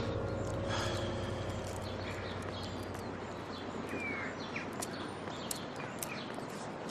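Background ambience with a steady low hiss and scattered short bird chirps. The tail of a musical sting fades out in the first couple of seconds.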